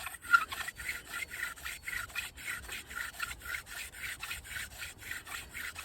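Hand drill friction fire: a wooden spindle spun back and forth between the palms, grinding into the baseboard in quick even strokes, about six a second, with a squeaky note on each stroke. The hole is being burned in and is warm and giving off dust, not yet the black dust of an ember.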